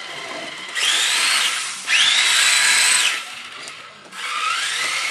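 Brushed 20-turn electric motor and drivetrain of a Tamiya TT-01E radio-controlled drift car whining through three throttle bursts. In each burst the pitch climbs quickly to a high, steady whine and then cuts off; the third climbs more slowly near the end.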